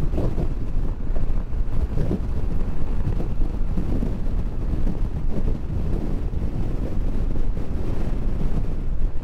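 Wind buffeting the microphone of a motorcycle riding at speed, with the bike's engine and road noise underneath.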